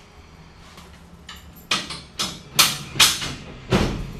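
A run of five or six sharp knocks and clanks, unevenly spaced, from the steel hand truck being handled, the loudest near the end.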